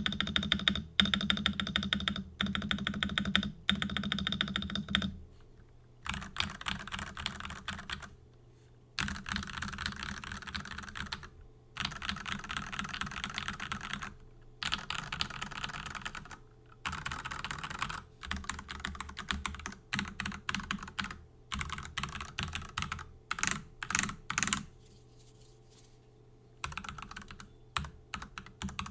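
Typing on a stock Ducky ZERO 6108 mechanical keyboard with Cherry MX2A Red linear switches. The keystrokes come in quick runs of a few seconds each, with short pauses between them. Near the end the strokes slow to single keys, then stop for about two seconds before typing resumes.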